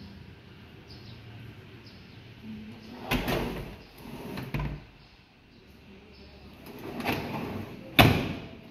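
Aluminium kitchen cabinet fittings worked by hand: a pull-out wire-basket drawer sliding on its runners, with a few rasping slides through the middle, then a cabinet door knocked shut with one sharp bang near the end.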